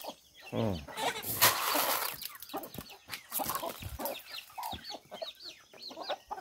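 A flock of domestic chickens, hens, roosters and chicks, clucking and peeping in many short overlapping calls. A loud brief rustle about a second and a half in.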